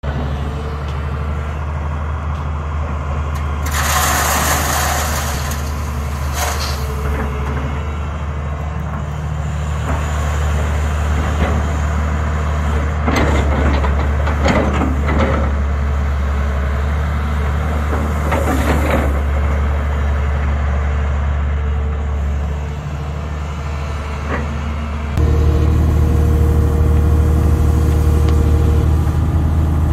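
Heavy diesel engine of a tracked excavator running steadily, with several bursts of crunching, pouring gravel as the bucket digs into a gravel pile and dumps into a steel dump-truck bed. Near the end the engine becomes louder and steadier, heard from inside the excavator's cab.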